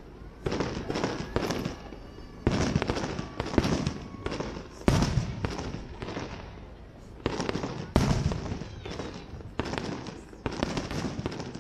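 Aerial firework shells bursting: about a dozen sharp booms at irregular intervals, each trailing off in a rolling echo.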